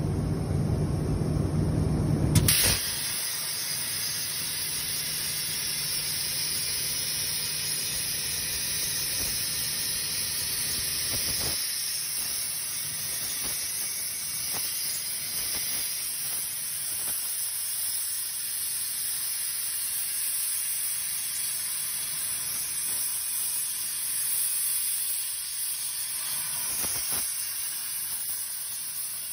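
Low machine rumble for the first two seconds or so, then the Hypertherm Powermax 125 plasma torch of a CNC plasma table fires with a sudden crack and runs with a steady high-pitched hiss as it cuts through metal plate.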